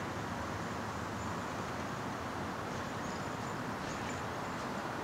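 Steady outdoor background noise: an even hiss with a low hum underneath and no distinct sounds.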